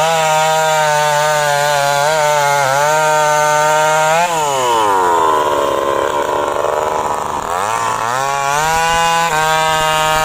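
STIHL MS 250 two-stroke chainsaw at full throttle, cutting through a teak trunk. About four seconds in the throttle is released and the engine falls to idle. Near eight seconds it revs back up to full speed and cuts again.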